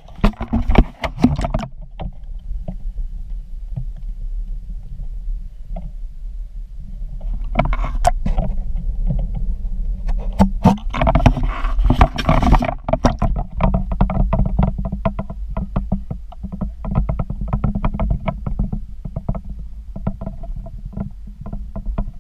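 Muffled water sloshing around a partly submerged action camera, with clusters of knocks and bumps at the start, around eight seconds and again from ten to thirteen seconds, followed by a run of quick ticking.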